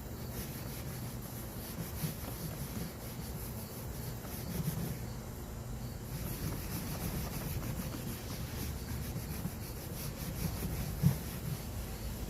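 Rubbing and wiping by hand on the mower's housing, a steady scrubbing texture, with one sharp knock near the end.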